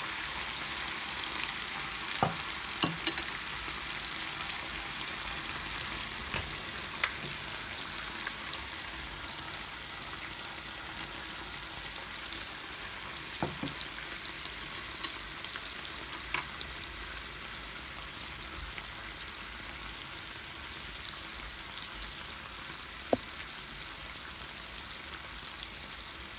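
Chicken and vegetables in teriyaki sauce sizzling steadily in an electric pot, the hiss easing slightly over time. Light clicks of metal tongs against a serving bowl about two to three seconds in, and a few scattered clicks later.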